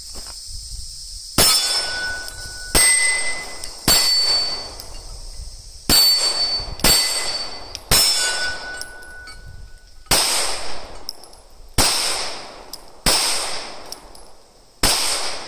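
Glock 19 Gen 5 9mm pistol fired about ten times, a shot every one to two seconds at an uneven pace. Each shot is followed by a ringing, metallic-sounding tail.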